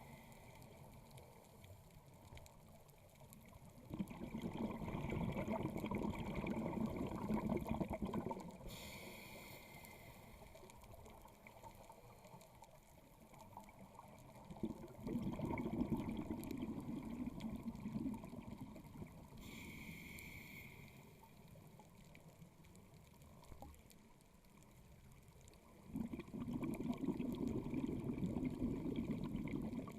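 Scuba diver's breathing heard underwater: three long rushes of exhaled bubbles from the regulator, each followed after a pause by a short hiss of the regulator delivering air on the inhale, in a slow even rhythm.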